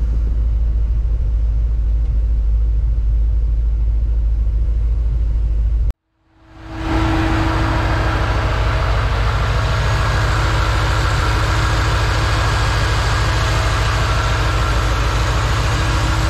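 Carbureted-era GMC K1500's 383 stroker V8 idling steadily, first a low rumble from inside the cab. After a brief dropout about 6 seconds in, it is heard at the open engine bay, louder and with a strong steady rush of air from the dual electric radiator fans running.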